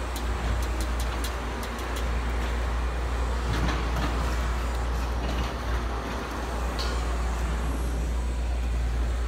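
Concrete truck engine running steadily with a deep, constant rumble, with a few light sharp taps in the first second or so.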